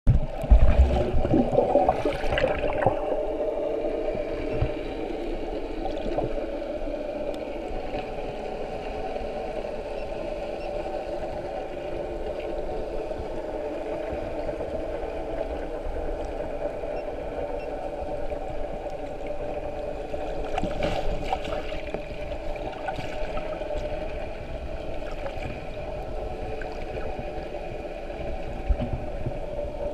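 Muffled underwater ambience: a steady droning hum with water rushing and bubbling, loudest in the first few seconds as the diver goes under, and a brief swell of bubbling about two-thirds of the way through.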